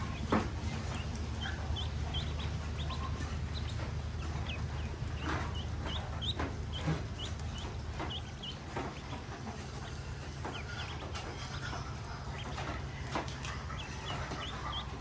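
A group of ducklings peeping over and over in short high notes as they feed, with scattered sharp taps, the loudest just after the start, over a steady low background rumble.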